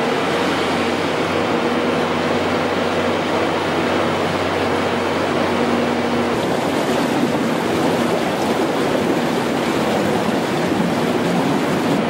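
Bobcat skid steer's diesel engine running as the machine drives: a steady, dense noise with a faint low hum under it.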